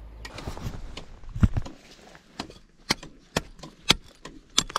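A metal hand digging tool striking rock, chipping at a crack to free iron nails stuck in the stone. Sharp knocks come about twice a second from about a second and a half in, the first a duller, heavier thump, after some rustling handling noise.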